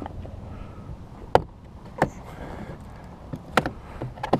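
Plastic interior mirror trim cover on a Chevrolet Cruze front door being pried off by hand: about four sharp clicks as its retaining clips snap loose.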